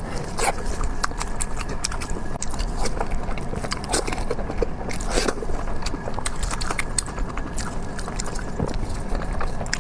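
Close-miked mukbang eating: biting and chewing fatty pork, a run of irregular short clicks and smacks.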